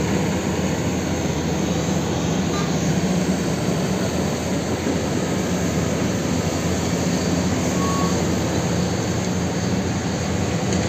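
Large diesel engines of a mining excavator and haul truck running steadily, heard from a distance as an even low hum over a wide rushing noise.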